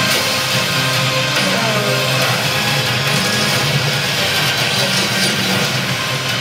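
Loud movie-trailer music playing from a TV soundbar, a dense, unbroken wall of sound with no dialogue.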